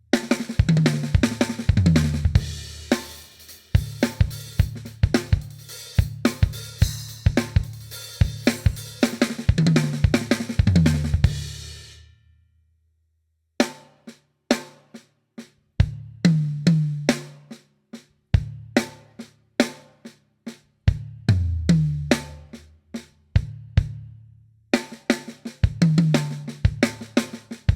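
Acoustic drum kit playing a groove with a repeated fill: snare, bass drum and hi-hat strokes under cymbal wash, and tom strokes stepping down in pitch. The playing stops about twelve seconds in, then resumes with drier strokes and little cymbal before the cymbals come back near the end.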